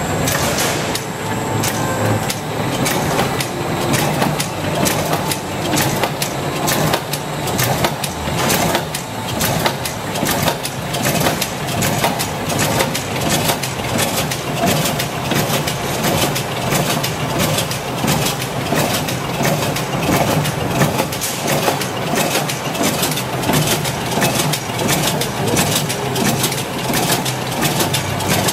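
SIG FD100 automatic butter/margarine packing and wrapping machine running in production, its wrapping mechanism clacking in a fast, even rhythm over a steady mechanical hum.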